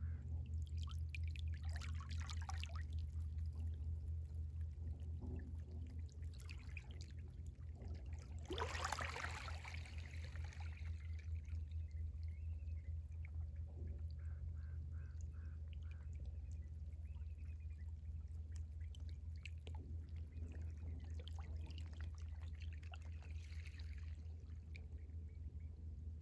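Seawater of a rising tide lapping and trickling at the shore, in irregular small washes with the largest about nine seconds in, over a steady low rumble.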